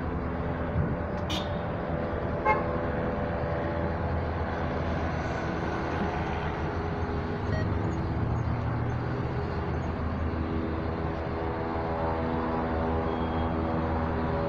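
Fire apparatus diesel engine running with a steady drone as city traffic passes. There is a sharp click about a second in and a short horn toot about two and a half seconds in.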